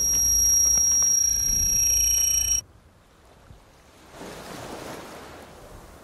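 A loud low rumble with high, steady ringing tones above it, which cuts off suddenly about two and a half seconds in, leaving a faint airy hiss that swells slightly near the end.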